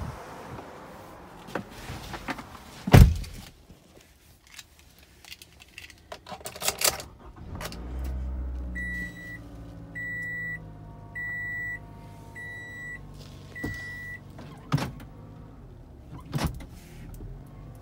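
Car door shut with a loud thud about three seconds in, then a 2015 Toyota Camry SE's four-cylinder engine starting and settling into a steady idle. A dashboard warning chime rings five times at an even pace, and a few sharp clicks follow near the end.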